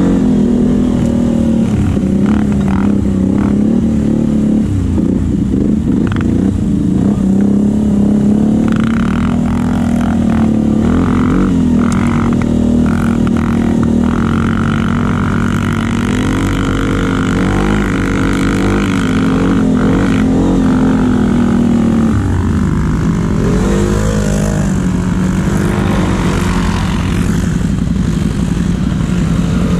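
CFMoto 850 XC ATV engine running under changing throttle on a rough dirt climb, its pitch rising and falling as the rider opens and closes the throttle. After a cut near the end, the engine note changes to another ATV coming up the track.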